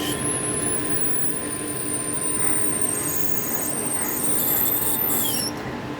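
Metal lathe running while a 5 mm drill bit in the tailstock bores into mild steel, with a thin high squeal from the cutting bit that slowly falls in pitch and stops about five and a half seconds in.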